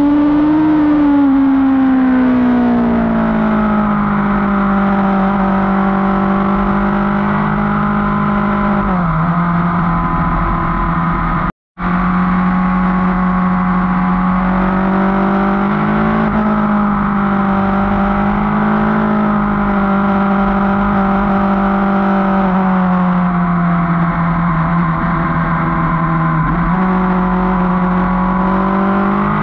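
Motorcycle engine running at a steady cruise, its pitch easing down and rising again several times as the throttle changes. A split-second cut to silence comes about twelve seconds in.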